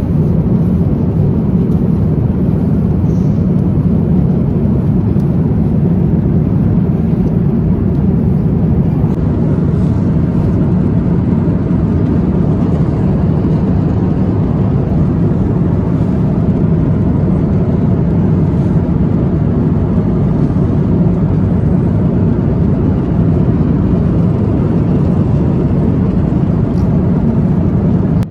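Steady rushing drone of a jet airliner's cabin in cruise: engine and airflow noise, even and unbroken.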